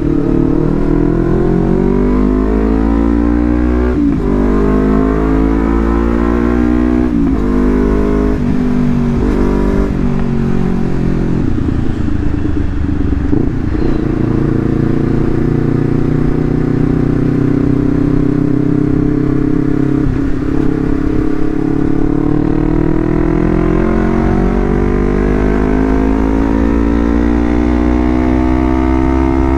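Honda CBR250RR motorcycle engine through a Leovince GP Corsa full-system exhaust, revved at a quarter to half throttle. The pitch climbs and falls back sharply several times in the first third, holds fairly even in the middle, and rises again near the end.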